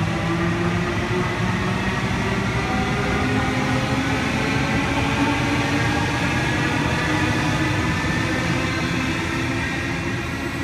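Sydney Trains Waratah double-deck electric train pulling out of the station, its traction motors whining in several tones that climb slowly as it gathers speed, over a steady rumble of wheels on rail. The sound eases slightly near the end as the rear car draws away.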